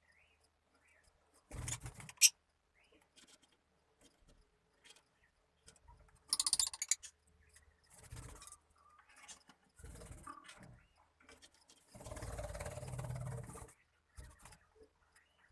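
Irregular scrapes, knocks and rustles from a lovebird cage as the birds move about and feed, with a sharp click about two seconds in and a longer rustling stretch near the end.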